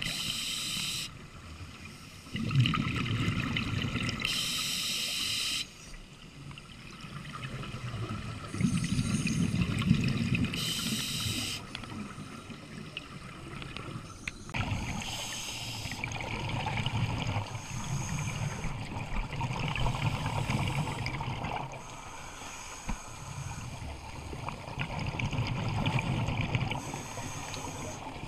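Scuba regulator breathing heard underwater: a short hiss on each inhale through the demand valve, then a low bubbling rumble as the exhaled air escapes, repeating in a slow cycle every few seconds.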